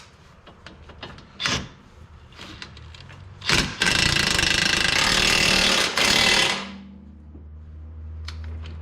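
Impact wrench running on a shock absorber mounting bolt, tightening it: one long burst of about two and a half seconds, then a short second burst, after a few light clicks of tools.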